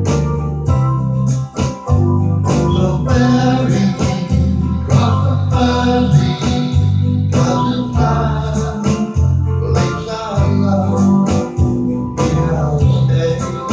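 Music played on an electronic keyboard, with held chords over a bass line that steps from note to note.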